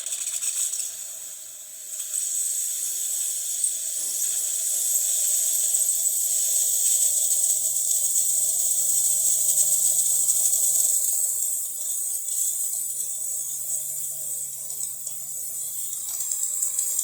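DeLonghi Magnifica XS steam wand hissing steadily as it puts out steam, with a low hum coming in twice underneath; the hiss softens after about eleven seconds. The steam function is working after the machine's service.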